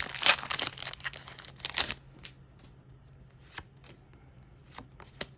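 Foil booster pack wrapper being torn open, a crackling rip for about two seconds, followed by a few light clicks.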